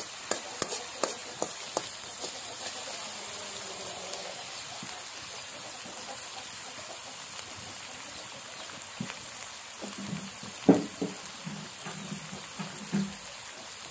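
Chopped aromatics sizzling in hot oil in a steel wok, a steady hiss. A metal spoon clicks and scrapes against the wok several times in the first two seconds.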